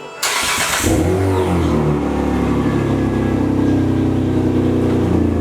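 LPG engine of a Hyundai Grandeur TG being remote-started: a short burst of starter cranking, then the engine catches and settles into a steady idle.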